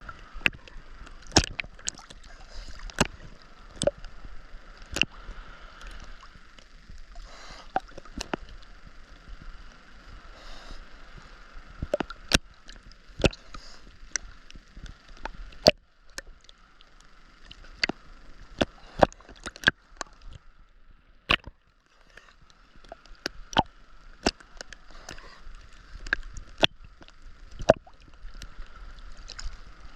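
Ocean water sloshing and splashing close to the microphone, with many sharp, irregular clicks and knocks over a steady hiss.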